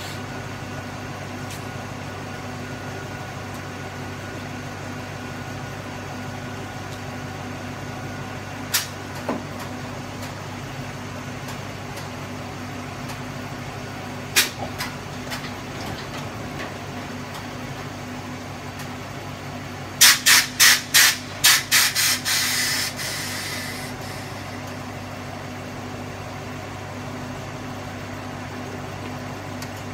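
Short bus's engine idling steadily, with sharp blasts of air from its air-suspension valves as the switches are hit: a single blast twice, then a quick string of about seven short blasts about twenty seconds in, trailing off into a longer hiss.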